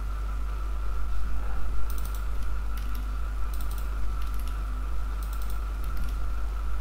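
Computer keyboard keystrokes in about six short clusters of quick clicks, starting about two seconds in, over a steady low electrical hum and a faint steady tone.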